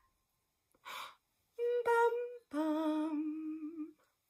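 A woman takes an audible breath, then sings three notes on a syllable like 'bum': two short higher ones and a longer, lower held one.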